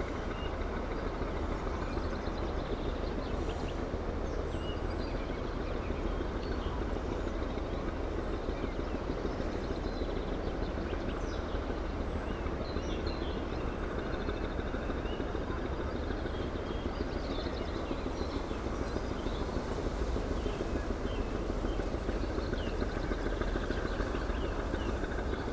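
Steady low rumbling noise of outdoor ambience on the microphone, with faint short bird chirps scattered throughout.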